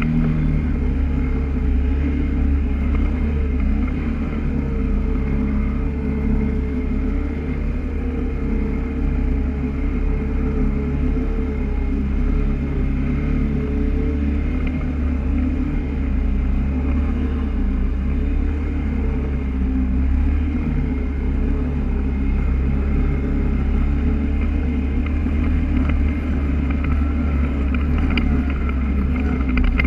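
Polaris ATV engine running steadily under way, its pitch wavering slightly up and down. A few light clicks near the end.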